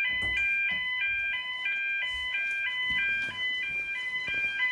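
Electronic fire alarm sounding, a continuous two-tone warble that switches back and forth between two pitches a couple of times a second.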